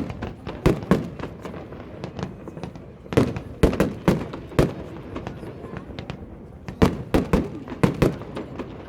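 Display fireworks going off: irregular sharp bangs coming in clusters, with a steady low background between them.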